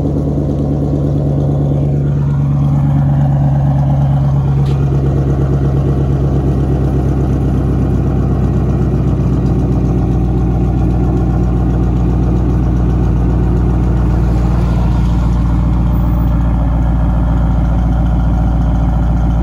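A 2012 Dodge Charger R/T's 5.7-litre Hemi V8 idling steadily after a cold start, heard close to its straight-piped exhaust tips.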